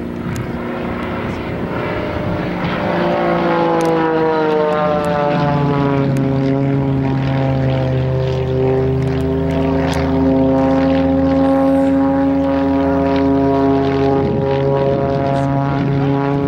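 Piston engines and propellers of two light aerobatic planes flying in formation. The sound grows louder over the first few seconds, its pitch falls between about three and six seconds in, then holds steady.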